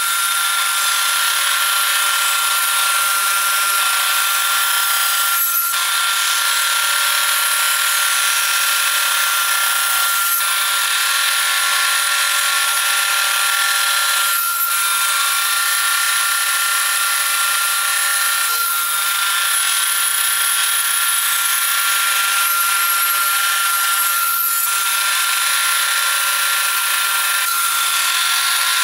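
Portable jobsite table saw running with a steady whine while ripping hardwood boards along the fence. The sound is broken briefly about every four to five seconds.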